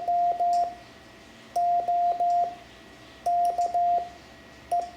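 Morse code (CW) sent as a single steady beeping tone, spelling the practice word YOKE: Y (dah-dit-dah-dah), then O (dah-dah-dah), K (dah-dit-dah) and a lone short E (dit), with about a second's pause between letters.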